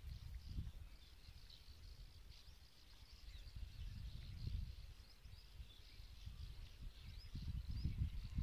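Wind buffeting the microphone in gusts, with faint bird chirps in the background.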